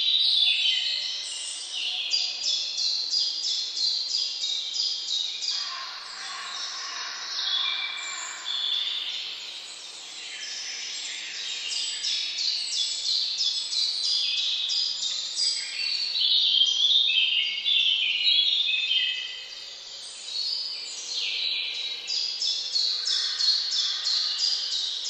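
Birds singing: a dense, continuous chorus of quick, high chirping notes.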